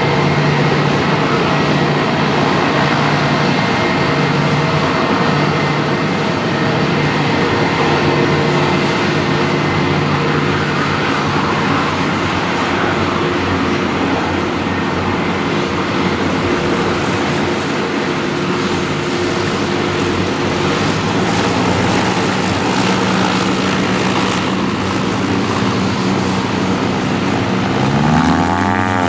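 Airbus A320 jet engines running at idle as the airliner taxis slowly, a steady whine with several held tones. Near the end a passing noise sweeps down and then up in pitch.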